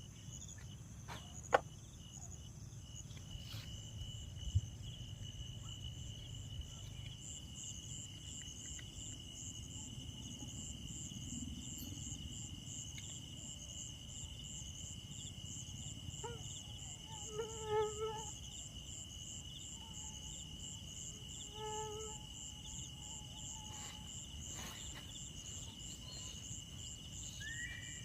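Chorus of night insects such as crickets: one steady high trill and a higher, rapidly pulsing trill, over a low rumble. A few sharp clicks come in the first seconds, and two short pitched calls are heard midway.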